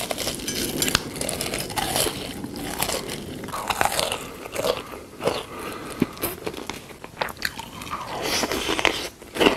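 Close-miked crunching and chewing of crisp food: a dense run of sharp, crackly bites and chews.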